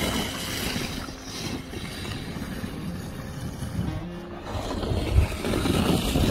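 Gusty snowstorm wind blowing across the microphone: a steady rushing noise with uneven low rumbling gusts.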